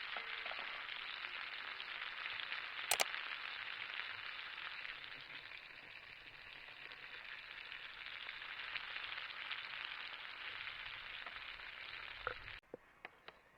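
A steady crackling hiss, with one sharp click about three seconds in; it cuts off abruptly near the end.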